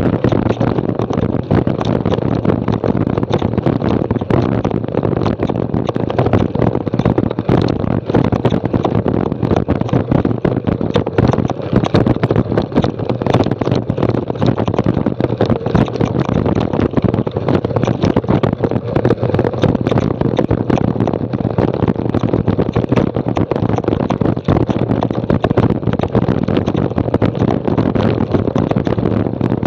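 Mountain bike rattling and crunching down a loose, rocky trail at speed, with a constant rush of wind on the action camera's microphone and a dense run of small knocks and clatters as the bike jolts over stones.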